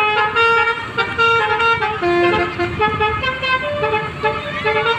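Musical multi-tone "telolet" bus horn playing a jingle: several notes sound together and step to new pitches every fraction of a second, over the low rumble of the bus's engine.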